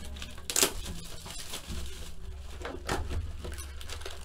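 A cardboard box of 2015 Panini Prizm baseball cards being handled and opened by hand: rustling and scraping of cardboard with a few sharp snaps, the loudest just under a second in and another near three seconds. A steady low hum runs underneath.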